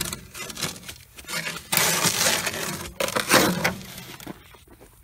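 Steel shovel scraping and scooping through gritty wet concrete mix, with clicks and two longer crunching scrapes in the middle.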